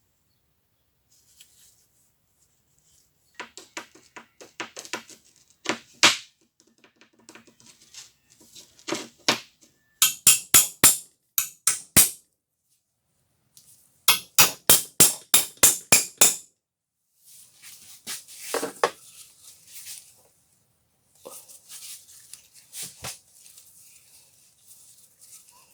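Hand-tool work on an old steel screwdriver: scattered clicks, then two quick runs of sharp strikes at about four to five a second, around ten and fourteen seconds in, followed by rougher scraping sounds.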